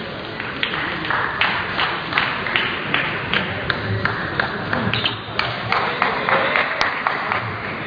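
Table tennis balls clicking: sharp, irregular ticks, often in quick pairs, of balls struck by bats and bouncing on tables, over a steady hall hum.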